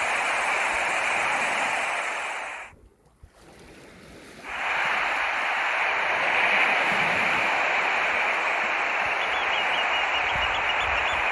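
Steady rushing water. It cuts out almost completely about three seconds in and returns a second and a half later. Faint high chirps repeat near the end.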